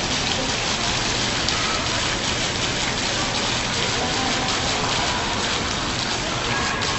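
Steady hiss and patter of water falling in streams from a programmable water curtain and splashing into the basin below, like heavy rain.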